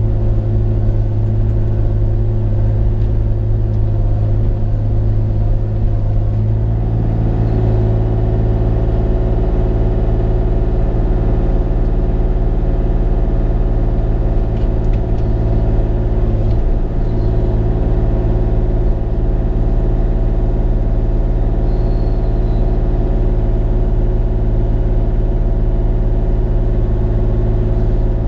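Bobcat E35 mini excavator's diesel engine running steadily, a constant low drone that shifts slightly in tone about six seconds in.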